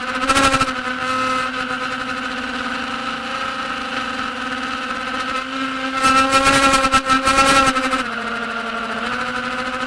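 Diatone Tyrant S FPV quadcopter's motors and propellers buzzing at a steady pitch, with louder throttle punches about half a second in and again from about six to eight seconds in.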